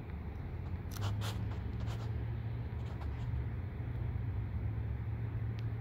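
Paper Plastigage envelope handled between the fingers, giving a few short crinkles about a second in and a couple more later, over a steady low hum.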